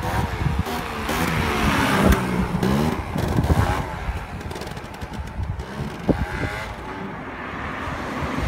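Gilera Runner 180 scooter engine revving, its pitch climbing and dropping again several times, loudest about two seconds in.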